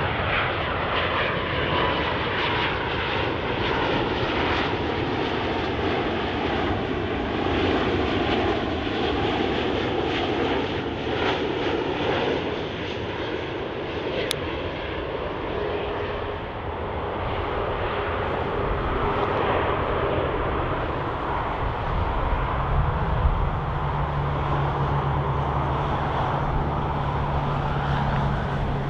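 Jet airliner's engines running loud and steady as the aircraft passes close, with a falling whine near the start. A low steady hum comes in after about twenty seconds.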